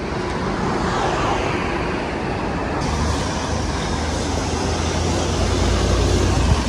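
Road traffic: cars driving past on a street, a steady hiss of tyres and engines, with a low engine rumble that grows louder from about three seconds in.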